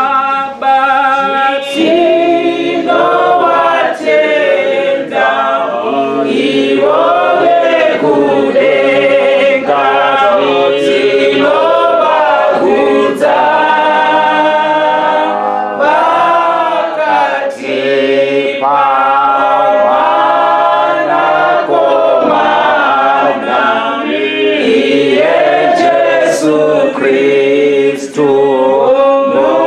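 Group of voices singing a church song unaccompanied, several parts in harmony with long held notes.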